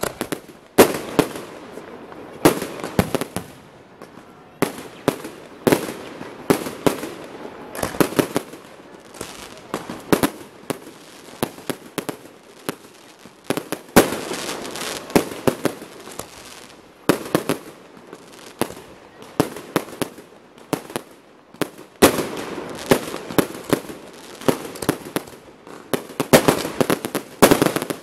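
Fireworks display: aerial shells bursting overhead in a fast, irregular string of sharp bangs that come in dense clusters every second or two.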